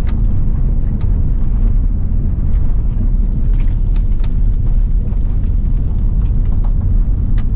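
Steady low rumble inside an Airbus airliner's cabin as it moves on the ground after landing, with scattered light clicks and rattles.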